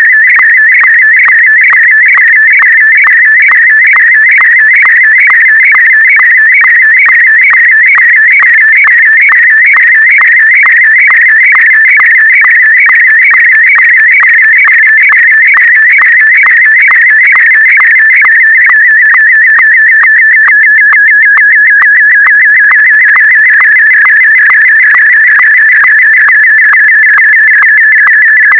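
Slow-scan television (SSTV) signal in Martin M1 mode: a fast-warbling electronic whistle, broken about twice a second by a short click at each line's sync pulse, sending a picture line by line. After about 20 seconds the warble settles into a steadier, more even tone.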